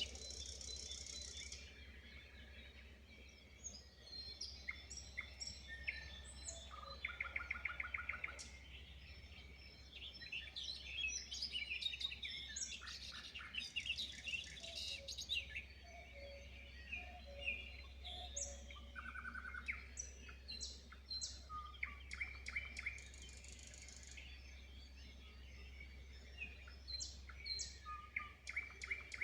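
Several wild birds singing and calling at once in a forest dawn chorus: overlapping chirps, whistles and quick trills of repeated notes, with a steady low hum beneath.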